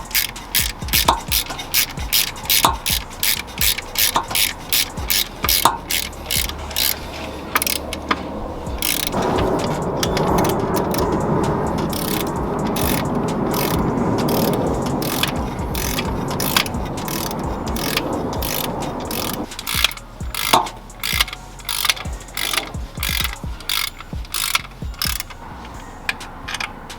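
Ratchet wrench clicking about twice a second as bolts are worked on during an alternator replacement. For about ten seconds in the middle the clicks give way to a denser, steady mechanical noise, then the clicking resumes.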